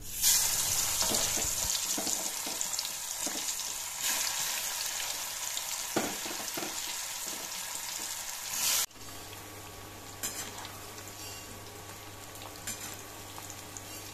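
Marinated jackfruit pieces going into hot oil in a kadai and sizzling as they deep-fry, the hiss starting suddenly as they go in. Just before nine seconds the sizzle drops abruptly to a quieter, steady frying hiss with a few faint taps of a metal spatula.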